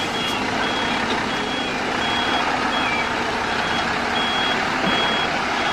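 Truck reversing alarm beeping steadily, a short high beep about every 0.7 seconds, over a continuous hiss of engine noise.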